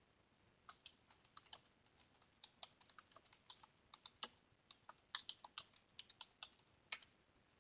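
Typing on a computer keyboard: a quick, faint run of key clicks that starts just under a second in and stops about seven seconds in.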